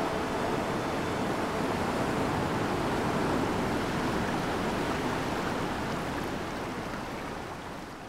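Ocean surf washing in a steady rush, fading out over the last couple of seconds.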